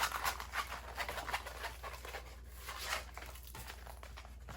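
Soft rustling and crinkling of diamond painting kit packaging being handled, a string of short rustles that thins out toward the end.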